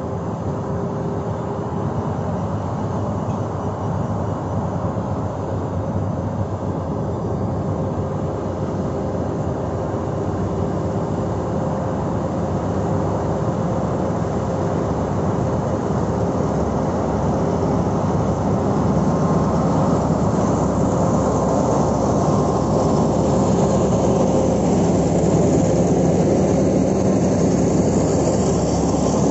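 SRT GEA-class diesel-electric locomotive running as it hauls a passenger train slowly past at close range, its engine note with a few steady tones, growing louder as it approaches. It is followed by the rumble of passenger coaches rolling by.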